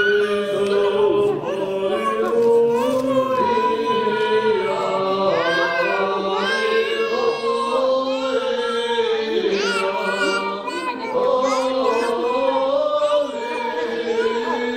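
Orthodox liturgical chanting: several voices sing a melody over a steady held drone note.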